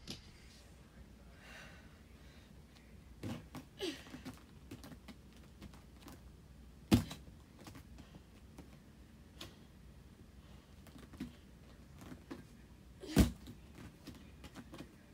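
Dull thuds of a child's bare hands and feet landing on a floor mat during backbend and walkover practice, two louder ones about 7 and 13 seconds in and a few softer ones around 3 to 4 seconds, over a low room hum.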